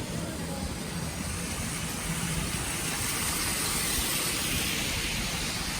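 Street traffic: a road vehicle's low rumble with tyre hiss that grows louder over the second half, as if a car is approaching.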